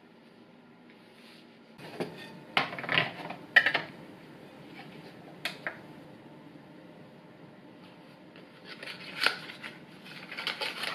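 Kitchen handling sounds over a faint steady hum: a few sharp knocks and rustles about two seconds in, a single click a little later, then the crinkling rustle of a small dry-yeast packet being handled near the end.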